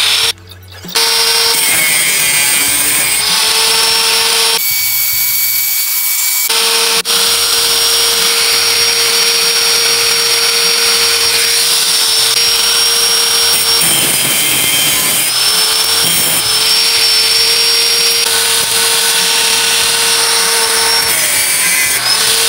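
Titanic 800 W, 100 mm electric angle grinder running at full speed, a steady motor hum with a high-pitched whine over it.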